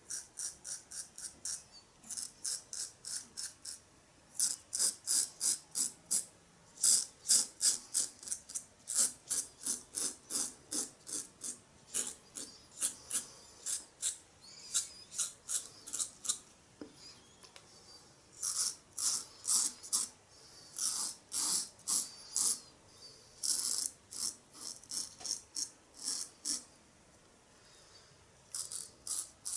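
Merkur Futur double-edge safety razor with a Supermax blade scraping through lathered stubble on an against-the-grain pass. It makes quick short strokes, about four a second, in runs broken by brief pauses.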